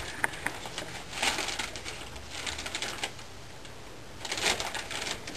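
Gift wrapping paper rustling and crinkling as it is handled, in three short bursts about a second, three seconds and four and a half seconds in.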